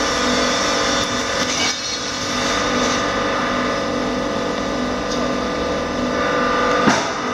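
Steady mechanical hum of the air blower feeding a charcoal blacksmith's forge, with one sharp knock about seven seconds in.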